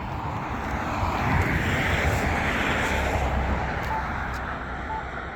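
Road traffic: a vehicle passing, its noise swelling to a peak about two seconds in and then fading. From about halfway through, a faint short beep sounds about once a second: the locator tone of the Campbell accessible pedestrian pushbutton.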